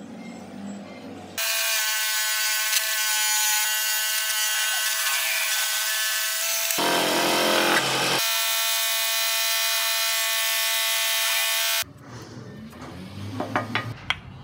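Bandsaw running and cutting a wooden block, a loud steady whine that starts abruptly about a second in and stops abruptly near the end, with a brief change in its sound around the middle. Quieter handling sounds follow.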